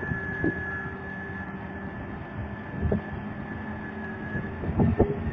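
Tipper truck's diesel engine running steadily with a high whine, and a few short low thumps around half a second, three seconds and five seconds in.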